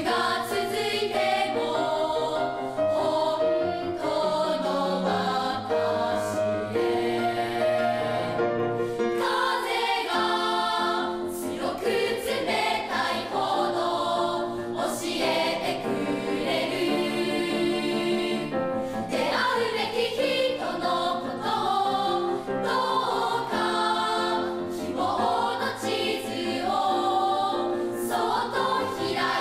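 Children's choir singing a slow song together.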